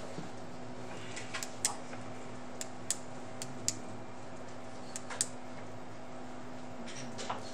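Marker pen writing on paper: a series of short, scratchy strokes, some sharper than others, over a steady low hum.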